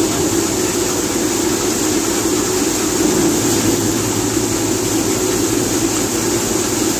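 Wheat thresher running steadily as bundles of harvested wheat are fed into its hopper: a loud, even, unbroken machine noise.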